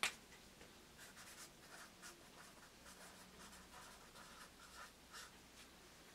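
Marker pen writing on a sheet of paper: a string of faint, short scratching strokes as letters are written. One sharp click comes right at the start.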